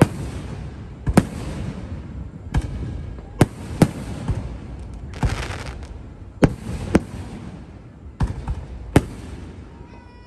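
Aerial firework shells bursting overhead: about ten sharp bangs at irregular intervals, each trailing off into a fading rumble.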